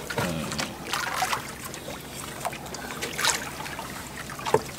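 Sea water lapping and trickling against the hull of a small outrigger boat, with scattered light taps and a sharper tap near the end.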